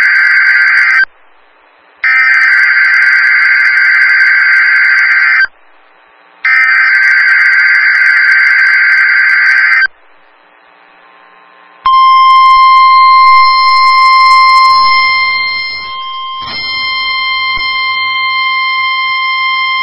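NOAA Weather Radio emergency alert test signal. First comes the end of one burst of buzzing digital SAME header data, then two more bursts of about three and a half seconds each, a second apart. After a pause of about two seconds, the steady 1050 Hz warning alarm tone starts about twelve seconds in and holds.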